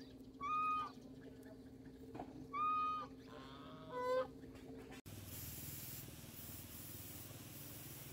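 Farmyard fowl honking: two short, flat calls about two seconds apart, then a lower call with a rising pitch, over a steady low hum. About five seconds in, the sound cuts abruptly to a steady hiss.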